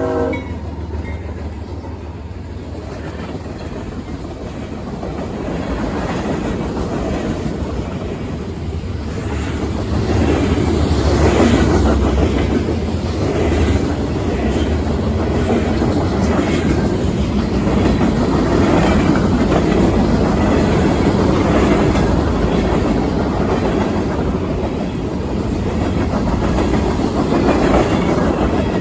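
CSX local freight train passing close by: a low diesel locomotive rumble, then freight cars rolling past with a steady clickety-clack of wheels over rail joints from about ten seconds in.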